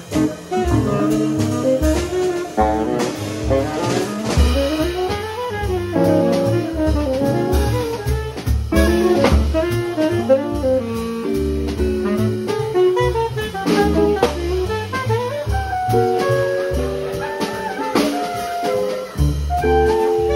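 Live jazz quartet: a tenor saxophone leads with quick runs of notes over plucked double bass and a drum kit with cymbals.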